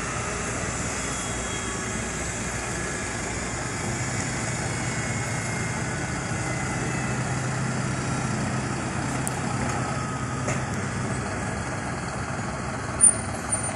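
Steady engine drone with several high whining tones on an airport apron, from a parked ATR turboprop airliner and its ground equipment. A short sharp knock near the end.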